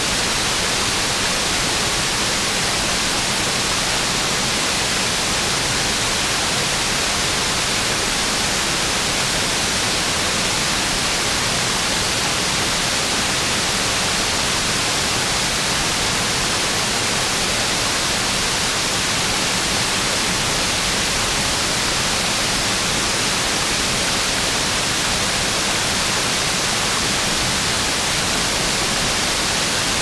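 River waterfall: water pouring over the falls in a steady, unbroken rushing hiss.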